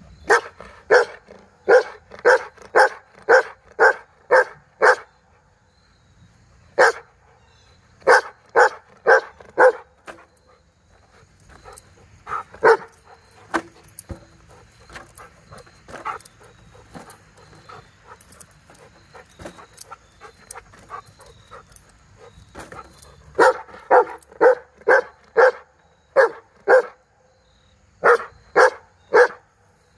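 Goldendoodle barking at helium balloons in quick runs of sharp barks, about two to three a second, with a few single barks and a quieter stretch in the middle.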